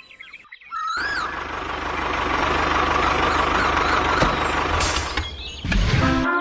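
A motor vehicle engine running loud and steady, with a fast low pulsing under a noisy rush; it gives a short low burst near the end. A few bird chirps come just before it starts.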